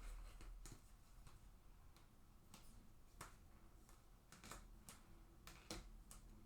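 Near silence broken by about ten faint, irregular clicks and taps of trading cards being handled and set down while they are sorted.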